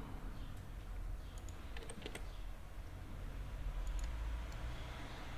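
A few scattered, sharp clicks of computer keyboard keys and a mouse being pressed, over a low steady hum.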